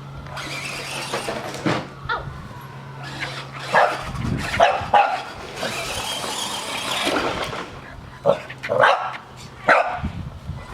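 Dogs barking in short, sharp, irregular barks, bunched about four seconds in and again near the end, over the steady low hum of a running RC truck's electric motor.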